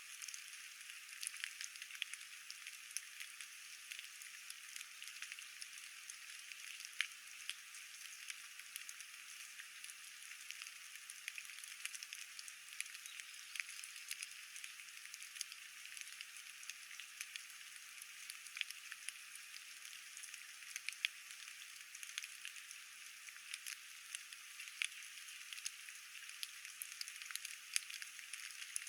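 Light rain falling: a faint steady hiss with scattered irregular ticks of single drops striking.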